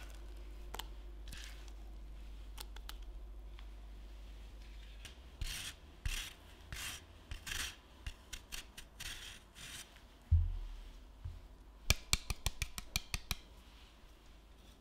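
A lemon grated on a fine rasp grater, a run of scraping strokes about two a second, after a few faint scrapes of pastry cream leaving a saucepan over a low hum. Then a thump and a quick string of sharp taps.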